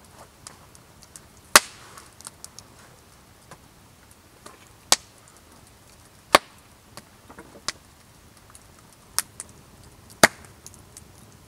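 Hand knife work on a small object: a handful of sharp snaps and clicks at uneven spacing, five of them loud, with fainter ticks between.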